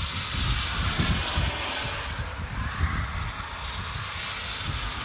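Steady outdoor rushing noise with an uneven low rumble underneath.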